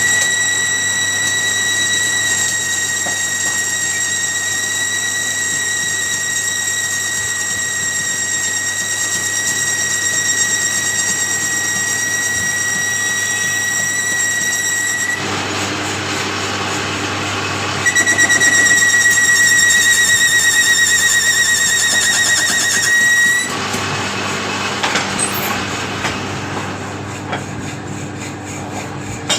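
A steady, high-pitched mechanical whine. It stops about 15 seconds in and comes back louder about three seconds later for roughly five seconds.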